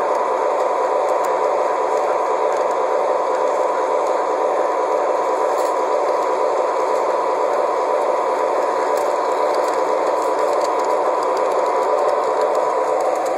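Model train running along its track, the locomotive's electric motor and wheels making a steady, even running noise with a faint hum, heard close up from on board.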